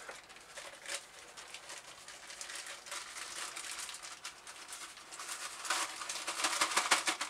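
Plastic bag crinkling and rustling in gloved hands as the old half ball is wrapped in it, in irregular crackles that grow louder and denser near the end.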